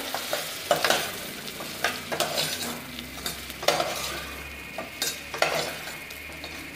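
Steel spoon stirring broken wheat, moong dal and vegetables frying in a stainless steel pressure cooker: a steady sizzle, with repeated short scrapes and clinks of the spoon against the pot.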